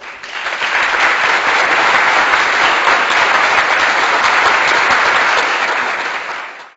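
Crowd applauding, a dense steady clapping that starts abruptly and fades out over the last second.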